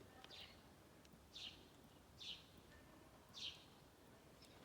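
A small bird chirping faintly: four short, high calls, about one a second, over faint outdoor background hiss.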